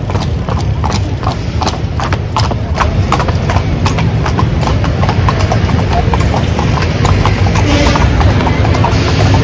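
Hooves of a pair of carriage horses clip-clopping on a paved street as they pull a calèche along, a quick, uneven run of sharp clops over a steady low rumble of the moving carriage.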